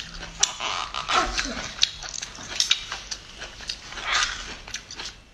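Cooked bamboo shoot being peeled by hand, its fibrous husk crackling and tearing in a run of short, sharp snaps. A brief falling whine sounds about a second in.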